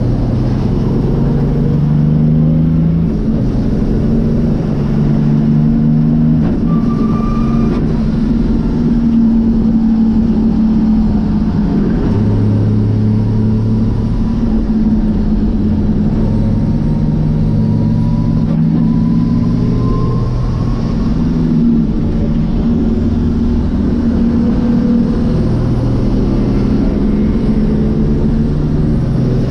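Nissan RD28 2.8-litre straight-six diesel engine in an S13 race car, heard from inside the cabin, running hard under racing load, its note stepping up and down every few seconds as the revs rise and fall.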